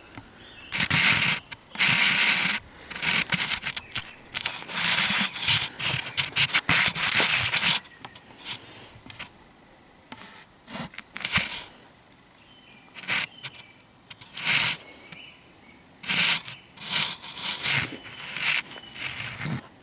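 Irregular bursts of rubbing and scraping right against the microphone, like hands shifting on a handheld camera. The bursts run almost unbroken for the first eight seconds, then come in shorter separate bouts.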